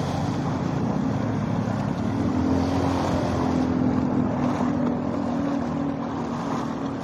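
Motor vehicle engine running steadily while driving through flooded street water, over a constant rush of water. About two seconds in a steady engine hum comes up and holds.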